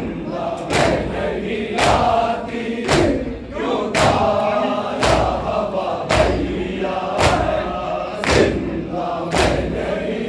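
A crowd of men chanting a noha (Shia lament) together while beating their chests in matam, a sharp slap in unison about once a second.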